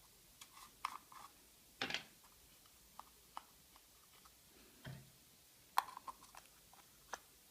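Scattered light clicks and taps of small plastic parts being handled and fitted by hand.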